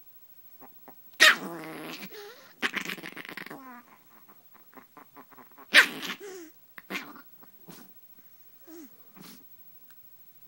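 Small dog growling and snarling in irregular bursts at a hand poking it through a blanket, with two loud sharp outbursts, about a second in and about halfway through.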